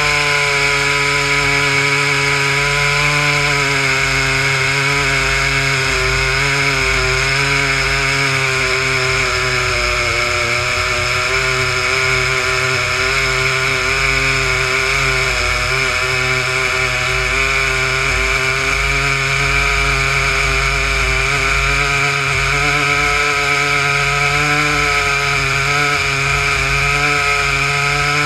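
Two big Stihl two-stroke chainsaws, an 880 and an 084, powering either end of one 87-inch bar on a dual-ended chainsaw mill. They run steadily at high revs under load as the chain rips lengthwise through a beech log.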